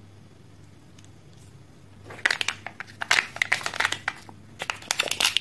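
The plastic packaging of a Kinder Joy egg crinkling and crackling in dense clusters as it is handled and its sealed lid is peeled back. The crinkling starts about two seconds in.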